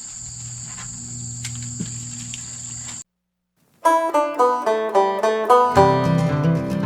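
Insects chirring steadily in a high, even tone over a low hum. It cuts off abruptly about three seconds in, and after a short silence a plucked banjo music track begins.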